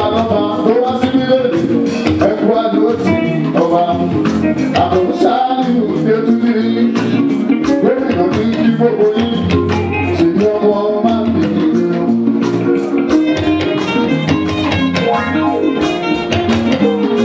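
Live fuji band music: a male lead vocalist singing over a band with steady percussion.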